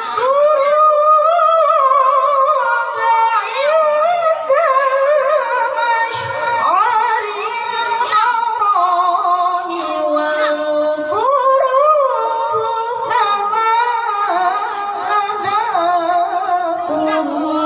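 A boy reciting the Qur'an in melodic tilawah style into a microphone, with long held notes that waver and glide through ornamented runs.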